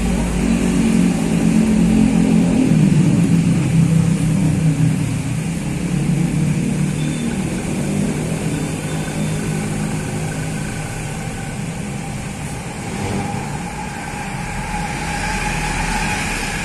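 Diesel engine of a coach bus pulling away, loudest in the first few seconds and then fading as the bus moves off.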